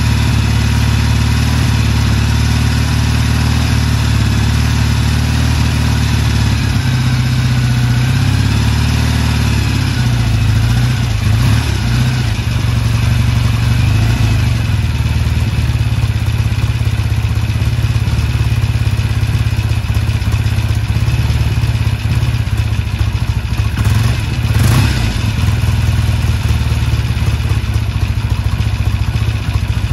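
1974 Norton Commando 850's air-cooled parallel-twin engine running on its newly fitted Tri-Spark electronic ignition, which replaced the points. It runs steadily at first; from about 7 seconds in the engine speed rises and falls, with brief throttle surges about 11 and 25 seconds in.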